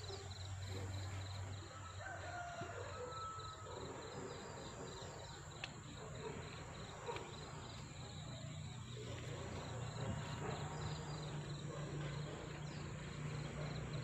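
An insect chirps in a steady pulsing rhythm, several pulses a second, over faint garden ambience. A couple of light snaps sound near the middle as green beans are picked from the vine.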